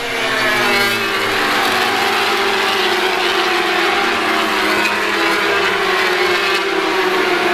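A pack of British Superbike racing motorcycles passing at racing speed, several engines at high revs overlapping, their pitch slowly falling as they go by and draw away.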